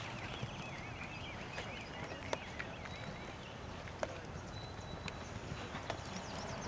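Hoofbeats of a Missouri Fox Trotter horse walking on the dirt footing of an arena, with a few sharp, irregularly spaced knocks. Small birds chirp during the first half.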